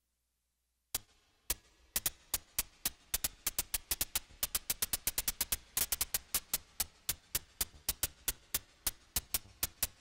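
A rapid, slightly uneven series of sharp clicks or taps, about four to six a second, starting about a second in after a silence.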